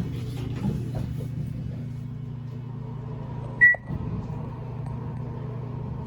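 Otis hydraulic elevator: a steady low hum with one short, high beep about three and a half seconds in, the kind of electronic signal an elevator gives at a floor.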